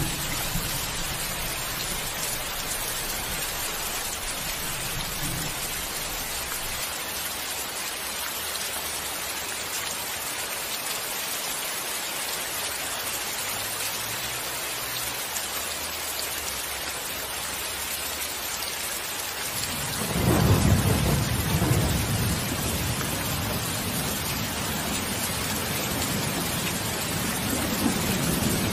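Steady rain hiss with thunder. A low rumble dies away in the first few seconds. A loud clap of thunder comes about two-thirds of the way through and rolls on for several seconds, and another begins near the end.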